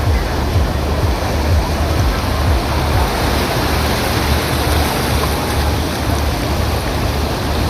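Ocean surf washing on a beach, a steady rushing noise, with a low fluttering rumble of wind on the microphone.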